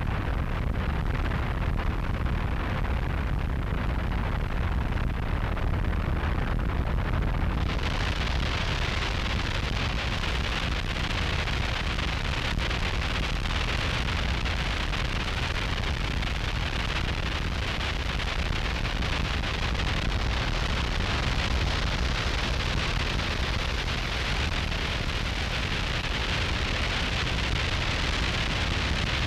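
Harsh noise wall: a dense, unbroken wall of distorted static with a heavy low rumble. About eight seconds in, a brighter hiss fills in the top and the wall holds steady from there.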